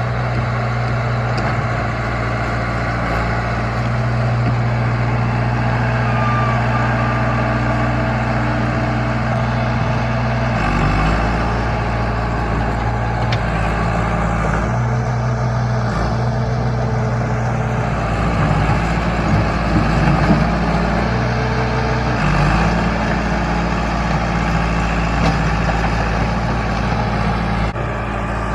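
John Deere 455E crawler loader's diesel engine running steadily while working dirt. The engine note changes several times as it takes and sheds load.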